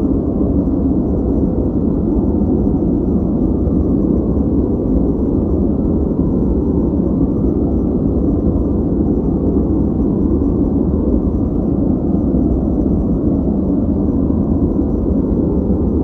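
Steady generated noise played as a background sound for focus. It is deep and muffled, with almost no high hiss, and does not change.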